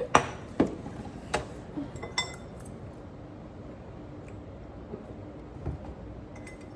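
Light clinks of glassware and dishes at a meal: four sharper clinks in the first two seconds or so, one with a short ring, then a few faint taps.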